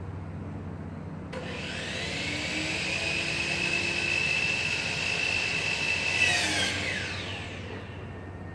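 An electric power tool motor starts abruptly about a second in, spins up to a steady high whine, then winds down and fades near the end.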